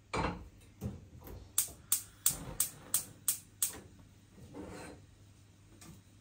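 Gas cooker's spark igniter clicking about seven times in a row, roughly three clicks a second, as a burner is lit under the kettle, after a knock at the start.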